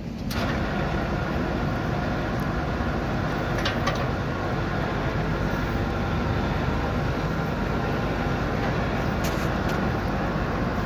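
Roll-In Saw Co. Journeyman vertical contour band saw switched on and running with no load. The motor, wheels and blade come up to speed within about half a second, then run steadily.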